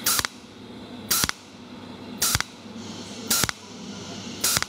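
Cold welding machine firing its tungsten electrode in single pulses: a sharp zap about once a second, five times, each zap laying one spot weld on a metal seam, starting from the tail of the previous spot.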